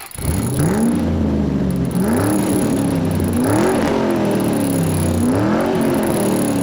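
Car engine revved repeatedly, its pitch climbing and falling back about five times.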